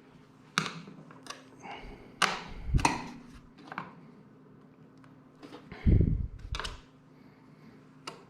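Hand tools and bolts clicking and knocking against a motorcycle's airbox parts, in scattered sharp taps at irregular intervals, with a duller, heavier thump about six seconds in.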